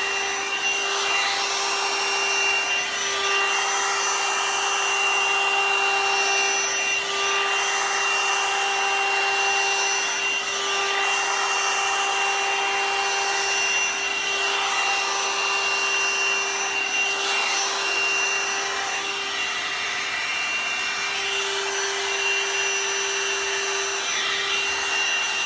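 One-step hair dryer and styler brush running steadily: a constant motor hum and whine over a rush of blown air.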